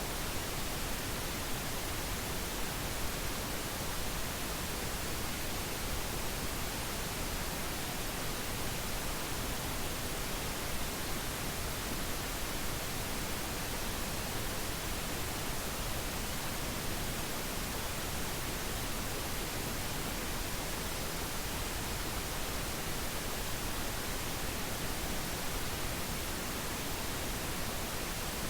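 Pink noise: a steady, unchanging synthetic hiss whose energy falls off by 3 dB per octave toward the highs, so it sounds fuller and deeper than white noise.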